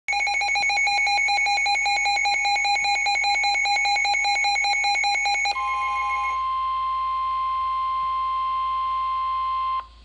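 Weather alert radio's electronic alarm beeping in a rapid pulsing pattern for about five and a half seconds, then the steady single-pitch NOAA Weather Radio warning alarm tone, which cuts off just before the flood-warning broadcast begins.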